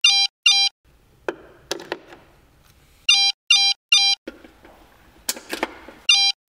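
Mobile phone ringing with an electronic beeping ringtone: short beeps about two a second, in groups of two or three with pauses of about two seconds between groups. A few sharp knocks fall in the gaps.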